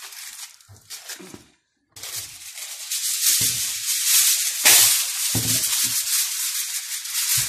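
Aluminium foil crinkling and rustling as it is wrapped around a sweet potato and a new sheet is pulled out and handled, with a few dull knocks. The sound drops out completely for a moment about one and a half seconds in, then the crinkling comes back louder.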